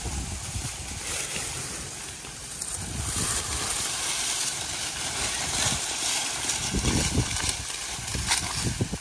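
Wind buffeting the microphone in uneven low gusts, over a dry rustling of harvested corn stalks and leaves that grows stronger a few seconds in.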